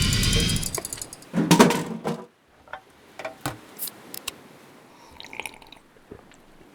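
Cartoon sound effects: a loud passage fades out in the first second, a short low burst comes about a second and a half in, then faint scattered clicks, ticks and drips.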